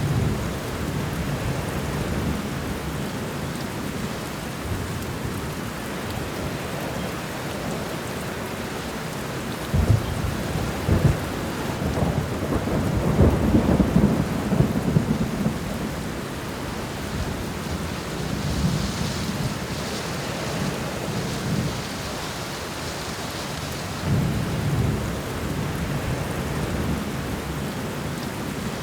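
Steady rain with thunder: two sharp claps about ten seconds in, then a long rolling rumble, and another low rumble near the end.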